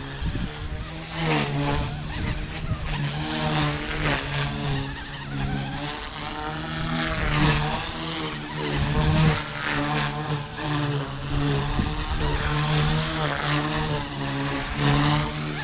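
Blade 150S electric RC helicopter in flight, its rotor and motor whine rising and falling in pitch as the head speed and load change through the manoeuvres, with a steady high-pitched whine above. Gusty wind buffets the microphone.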